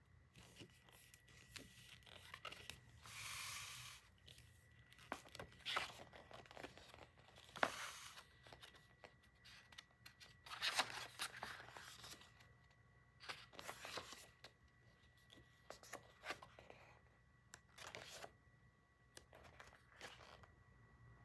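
Packaging being torn open and handled: tearing, rustling and crinkling, with a longer tear about three seconds in and scattered sharp clicks and rustles after it.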